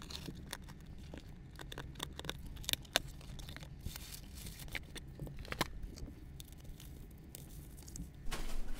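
Unpacking a cardboard shipping box: a box cutter scraping along the packing tape, then crumpled packing paper rustling and crinkling. It comes through as faint scattered crackles and small clicks.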